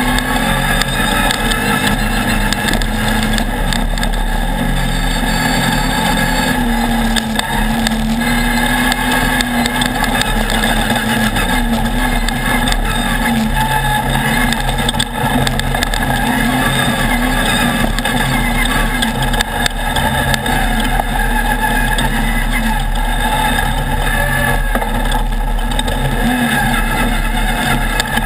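Off-road race buggy engine running hard at speed, heard from on board the car, its revs rising and falling under a steady rush of wind and track noise.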